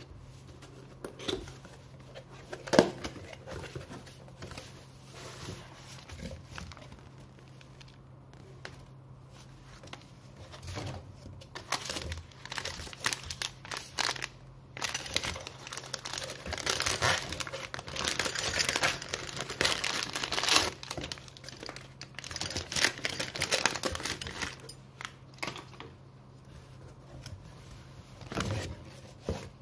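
Packaging being handled during an unboxing: a plastic bag crinkling and tearing and cardboard box flaps rustling, with scattered knocks of handling. A single sharp knock about three seconds in is the loudest moment; the crinkling is busiest and loudest in the middle stretch. A faint steady low hum sits underneath.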